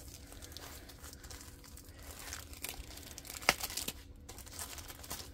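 Plastic packaging of a rolled diamond painting canvas crinkling and rustling as it is handled, with a single sharp click about three and a half seconds in.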